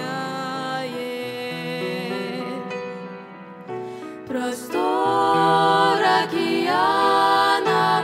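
Girls' vocal trio singing a slow hymn in harmony over a soft accompaniment; the voices swell louder about four and a half seconds in after a brief quieter dip.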